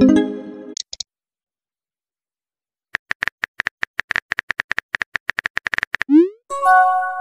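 Simulated smartphone messaging-app sound effects. A short pitched tone dies away at the start. About three seconds in, a rapid run of keyboard typing clicks begins as a message is typed. Near the end comes a quick rising whoosh and then a held chime-like alert tone.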